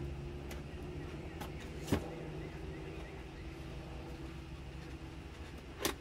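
Scissors snipping at a cardboard box and its packing tape: a few sharp clicks, the loudest about two seconds in and just before the end. A steady low hum runs underneath.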